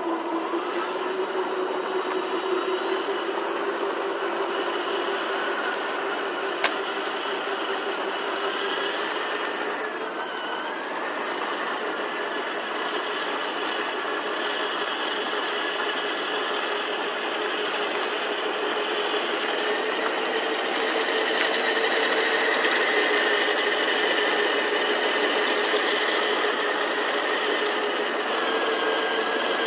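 Heng Long M1A2 Abrams RC tank driving, a steady mechanical whine whose pitch drifts slowly and rises a little about two thirds of the way through. A single sharp click about a quarter of the way in.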